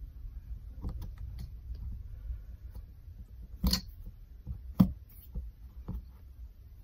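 Light taps and knocks of hands handling a plastic ruler and a small glued cardboard piece on a cutting mat, with two sharper knocks a little past the middle.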